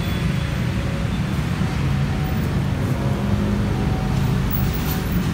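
Steady low rumble of vehicle noise, with a few faint steady hum tones above it.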